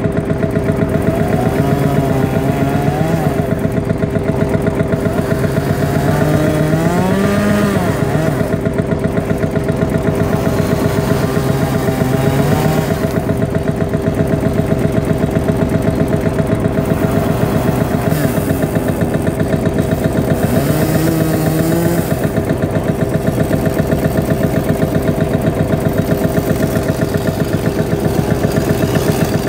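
Vintage tractor engine running steadily with a fast, even beat. Voices can be heard in the background for much of the time.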